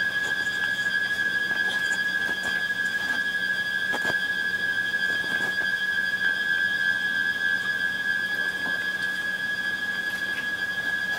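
A steady high-pitched electronic tone with fainter overtones, held unbroken, over a faint hiss with a few faint clicks.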